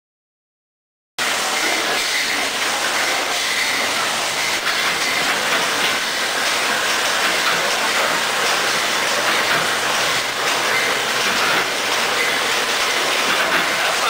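Silence for about a second, then a Raumak Fast Baler 500 baling machine and its salt-packing line start sounding: a steady mechanical hiss and clatter with light clicks here and there.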